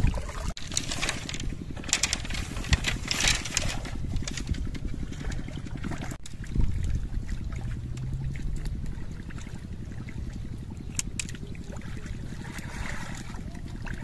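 A small engine running steadily, with a fast, even pulsing throughout.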